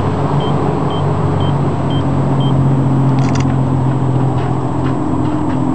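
A steady low engine hum, with a short high beep repeating about twice a second through the first half and a few sharp clicks a little past three seconds in.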